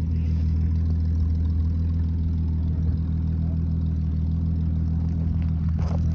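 A vehicle engine running steadily at idle, an even low hum that does not rise or fall.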